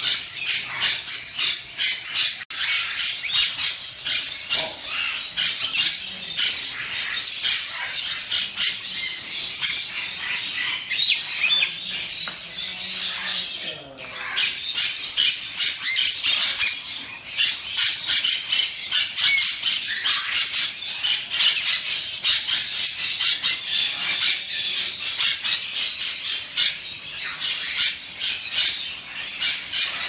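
Many birds in a bird shop chirping and squawking together, among them parrots such as conures, forming a dense, unbroken chatter of short shrill calls. The chatter dips briefly about halfway through.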